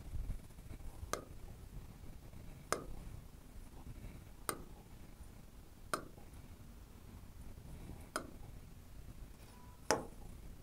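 Six sharp, light taps of a stylus on the glass of an interactive whiteboard screen, spaced about one and a half to two seconds apart.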